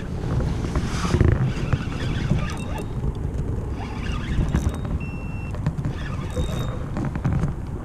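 Steady low rumble of wind on the microphone and water moving along the hull of a fishing kayak underway. About five seconds in there is a faint, short, high tone.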